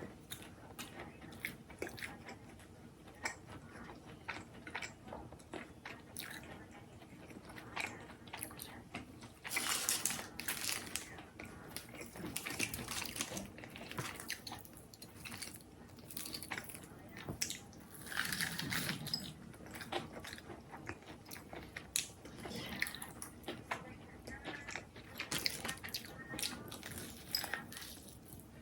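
A person eating close to the microphone: many small mouth clicks and chewing, with louder bouts of crunchy biting and chewing about a third of the way in and again past the middle.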